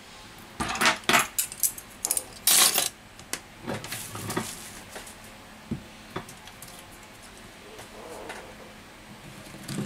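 Small plastic spring clamps clattering and knocking together as a hand picks through a pile of them, loudest in the first three seconds, then a few lighter knocks.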